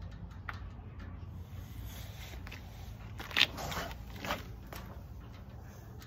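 A few short scrapes and clicks over a low steady rumble, the loudest scrape about three and a half seconds in and a smaller one a second later.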